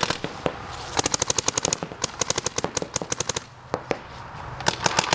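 Paintball markers firing rapid strings of shots, about a dozen a second, in several bursts with a short lull past the middle.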